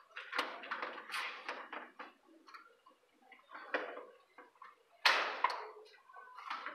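Electrical wires being handled at an open metal distribution board: scattered clicks and rustling scrapes as the wires are pulled and rub against each other and the enclosure. There is a louder scrape about five seconds in.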